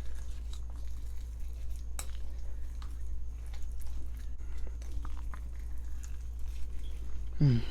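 Small clicks and taps of a spoon against a bowl, with light eating sounds, over a steady low hum. A short falling vocal sound comes near the end.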